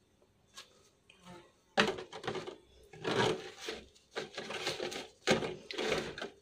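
Thin clear plastic food container crinkling and clacking in several irregular bursts as pastry triangles are pushed into it by hand, with papery rustling from the pastry.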